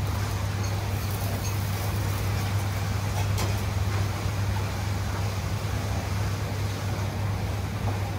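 Steady low hum of a commercial kitchen's fans and extraction, with a few faint ticks of utensils.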